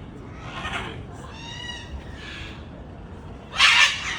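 Parrots squawking: harsh, scratchy calls about half a second in and a louder one near the end, with a drawn-out, pitched, mewing call in between.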